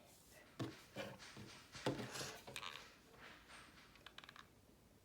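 Faint handling noises from sewing and craft work: a few soft knocks and brief rustles of fabric and tools, the loudest about two seconds in.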